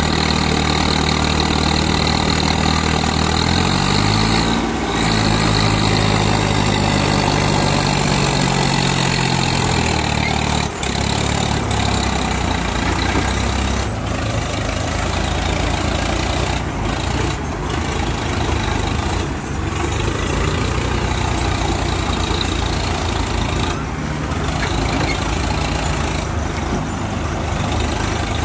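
Diesel engines of a Swaraj tractor and a JCB backhoe loader running steadily. One engine revs up about four seconds in, holds there, and drops back to a steady idle about ten seconds in.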